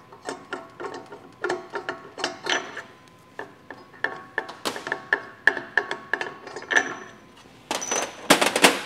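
Metal bolts on the front door of a Frigomat FR260 frozen-dessert machine being unscrewed: a quick run of metallic clicks and clinks with a ringing tone, then a louder metal clatter near the end.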